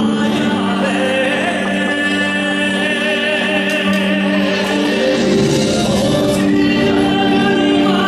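Music for a stage dance: a song with singing voices, the notes held long and wavering over steady accompaniment.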